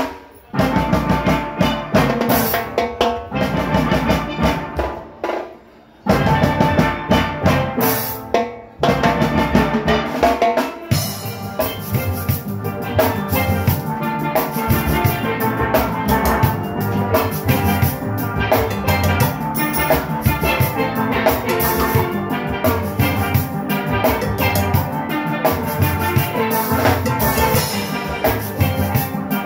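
Steel orchestra playing live: steelpans over an engine room of drum kit and percussion. The band stops briefly twice in the first nine seconds, then plays on without a break from about eleven seconds in.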